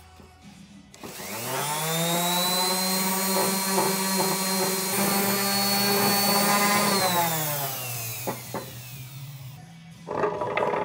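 Random orbital sander switched on about a second in, spinning up to a steady whine as it sands an oak stool seat flush, then winding down after it is switched off around seven seconds in.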